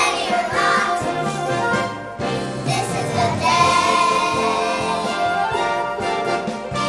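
Music: a children's song with young children singing.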